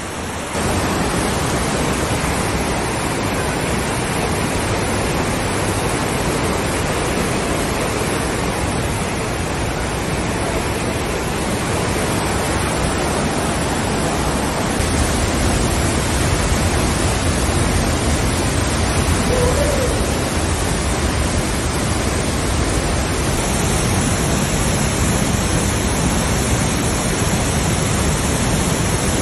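Rushing water of a snowmelt mountain creek tumbling over rocks and a waterfall pouring through a rock gorge: a loud, steady rush of water.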